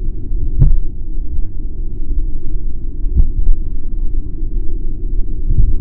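Steady low, muffled rumble of water picked up by an underwater camera, with two sharp clicks, about half a second in and about three seconds in.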